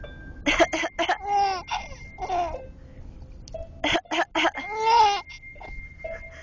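Baby laughing and cooing in a car seat: bursts of giggles about half a second in and again around four seconds, between high squeals that rise and fall in pitch, the loudest near five seconds in. A low rumble of the car cabin runs underneath.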